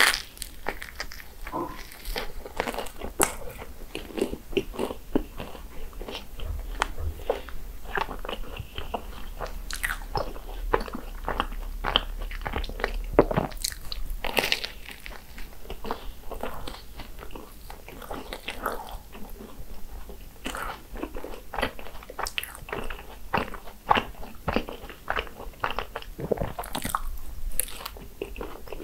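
Someone eating croffles (croissant waffles): a continuous, irregular run of crisp crunching bites and chewing.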